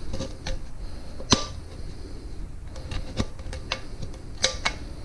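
Tin snips cutting up the side of a thin metal coffee can: a run of sharp metallic clicks and crunches as the blades bite, the loudest about a second in and two more near the end.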